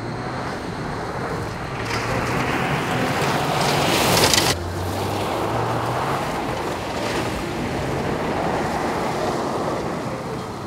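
Toyota GR Yaris three-cylinder engine running hard as the car slides on loose gravel, heard trackside, with a steady rush of tyres churning and spraying gravel. A louder hiss of flung gravel builds to about four seconds in and cuts off suddenly.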